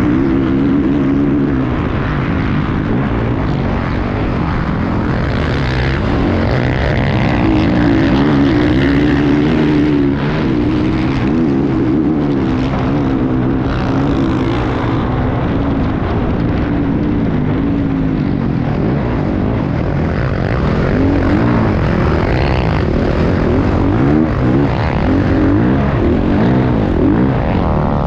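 Enduro racing motorcycle's engine heard from the onboard camera, running hard, its pitch rising and falling continuously with throttle and gear changes.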